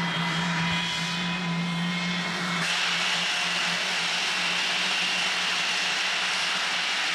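English Electric Lightning's twin Rolls-Royce Avon turbojets running as the jet rolls slowly out of its shelter: a steady low tone under several high whistles. About a third of the way in, the separate whistles give way to a steadier, fuller rush.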